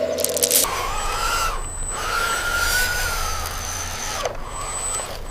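Small electric motors of an RC skid steer model whining as it drives and works, running in spurts with a slight rise and fall in pitch and cutting out briefly twice.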